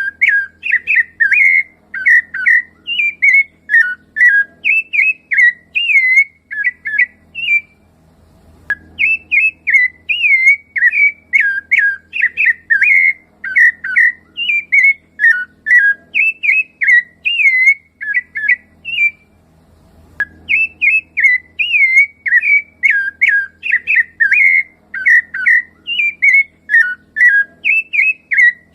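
Rufous-bellied thrush (sabiá-laranjeira) singing: a fast, continuous run of clear whistled notes that glide up and down, breaking off twice for about a second, roughly a quarter of the way in and again about two thirds of the way through.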